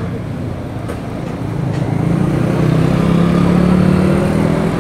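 A motor vehicle engine running close by in street traffic, its hum growing louder through the middle and easing off near the end.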